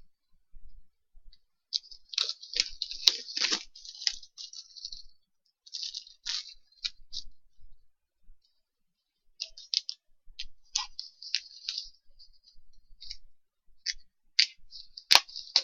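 Plastic shrink wrap crinkling and crackling as it is cut and peeled off a vinyl record sleeve, in irregular bursts with sharp clicks and a short pause in the middle.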